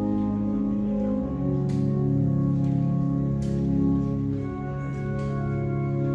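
Organ playing slow, sustained chords.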